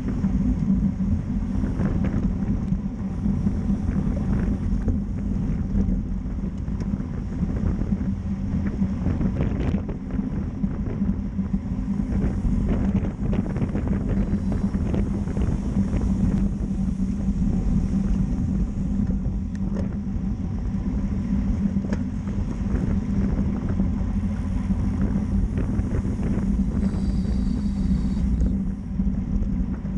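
Wind rushing over the microphone of a bike-mounted camera on a road bike at about 27 to 29 mph, with steady low tyre hum from the pavement.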